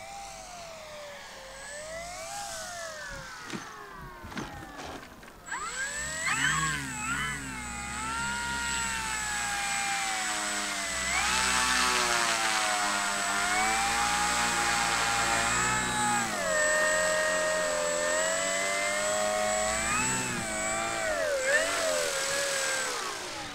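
Electric motor and propeller of a Flex Innovations RV8 radio-controlled model plane whining, rising and falling in pitch with the throttle, louder from about five seconds in as the plane taxis.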